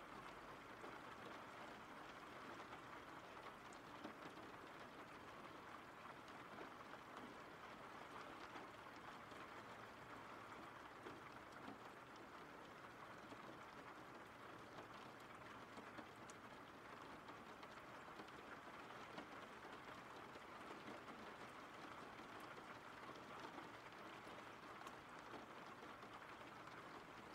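Faint, steady rain from a rain-sounds track: an even patter with a few sharper drop ticks.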